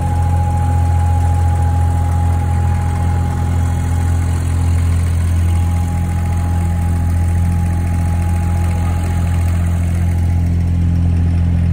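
An abra water taxi's diesel engine running with a steady low drone, heard from on board the wooden boat. A faint steady whine sits over it and fades out about nine seconds in.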